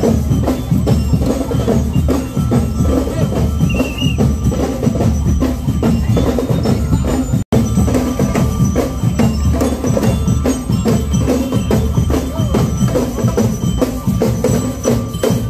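Marching band drums beating a steady, fast marching rhythm, with the sound cutting out for an instant about halfway through.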